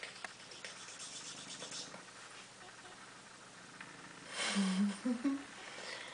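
Faint soft clicks and rustling from a mother cat and her two-week-old kittens nursing on a towel. About four seconds in comes a brief low murmur that rises in pitch.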